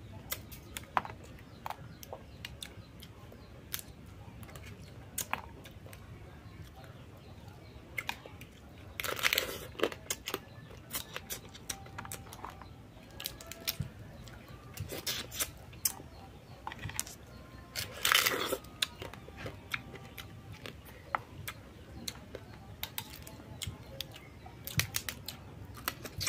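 Close-up eating sounds: cooked crab shell cracked and meat pulled apart by hand, with chewing, mouth clicks and finger sucking. Many short clicks throughout, with two longer, louder noisy stretches about nine and eighteen seconds in.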